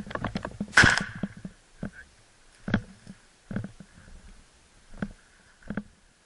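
Footsteps crunching over dry dirt and brush at a walking pace, about one step every three quarters of a second, with a louder burst of rustling and scraping about a second in.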